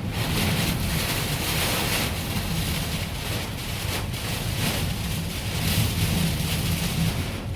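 Storm wind gusting and rain beating on a truck cab, heard from inside the cab: a dense rushing noise that swells and eases over a low rumble.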